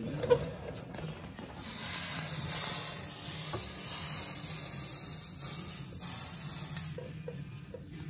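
Aerosol can of Fluid Film rust inhibitor spraying in one continuous hiss of about five seconds, which starts a bit over a second in and cuts off sharply near the end. A short knock comes just before it.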